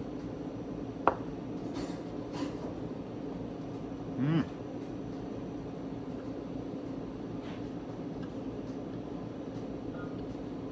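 Steady low room hum, with one sharp tap of tableware about a second in and a short murmur of voice at about four seconds.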